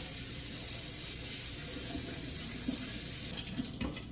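Kitchen tap running into a stainless steel sink as hands are rinsed under it. The steady rush of water breaks off about three seconds in.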